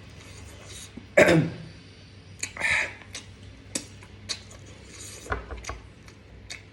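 A person coughs hard about a second in, then gives a shorter breathy cough or throat-clear a moment later, amid small clicks of eating and cutlery. The coughing comes from the heat of very spicy food.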